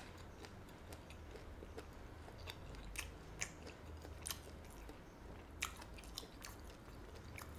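A man chewing a bite of smoked sausage with his mouth closed: soft, faint chewing with scattered small wet mouth clicks.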